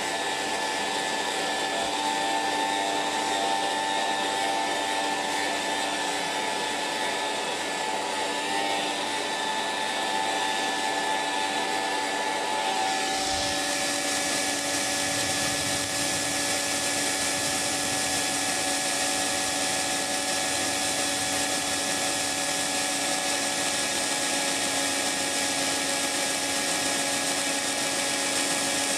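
Hair dryer running steadily, a whirring motor-and-fan noise with a rushing air hiss and a few steady hum tones. About 13 seconds in, the sound changes: the hiss grows brighter and the tones shift slightly in pitch, with a brief low thump.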